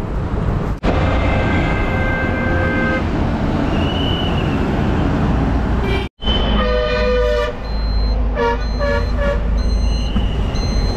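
Highway traffic rumbling with several vehicle horns sounding: one held for about two seconds near the start, a louder multi-note horn about six seconds in, then a quick run of short toots.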